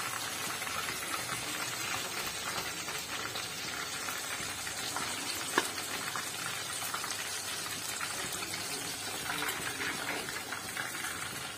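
Batter-coated chicken pieces deep-frying in hot oil in a kadai, a steady crackling sizzle, while a slotted steel spoon moves the pieces. A single sharp click comes about halfway through.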